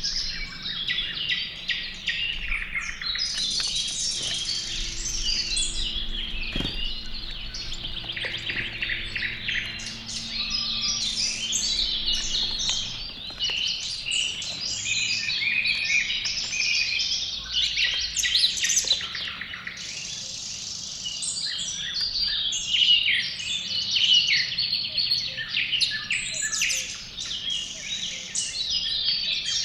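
Several wild songbirds chirping and singing at once, a dense run of overlapping short calls and rapid trills.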